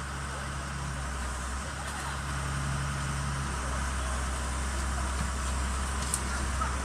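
Komatsu PC200-7 excavator's diesel engine idling with a steady low hum. A short faint tick comes about six seconds in.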